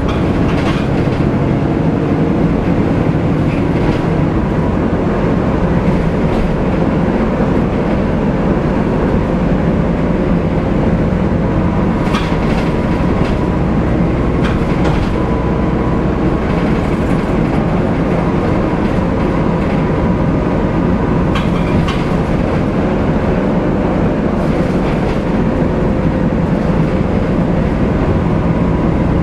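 Volvo B7TL double-decker bus heard from inside the lower deck while under way: its diesel engine, the loud cooling fan and road noise make a steady loud drone with a low rumble and a steady whine. Now and then there are sharp rattles and knocks from the body and fittings.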